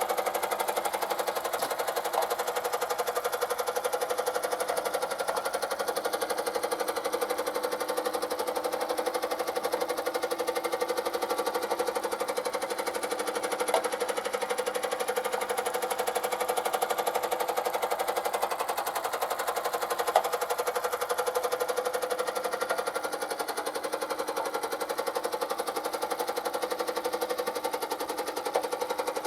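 The small steam engine of a vintage tin toy steamboat, running steadily with a rapid, even chugging. A few single sharp ticks stand out from it.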